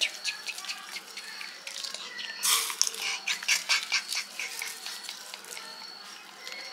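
Crisp jhuri bhaja (fried gram-flour sev) crackling as it is crumbled between the fingers and scattered over papri chaat: a run of small crunchy ticks, busiest in the middle.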